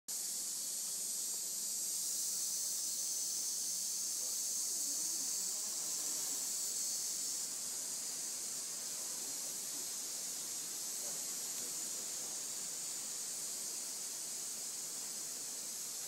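Chorus of insects in tropical forest, a steady high-pitched hiss with no breaks, easing slightly about halfway through.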